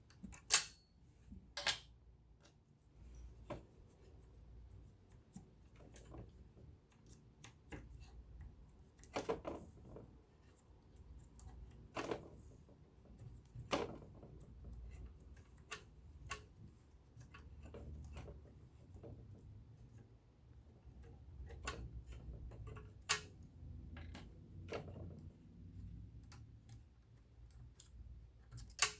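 Irregular sharp clicks and taps, a dozen or so spread unevenly, as metal parts of a vintage all-metal sewing machine and small tools are handled during cleaning, over a faint low rumble.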